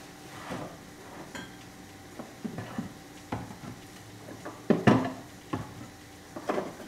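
Dishes and kitchen items clattering and knocking while someone rummages in an upper kitchen cabinet: a string of irregular knocks, the loudest pair about five seconds in.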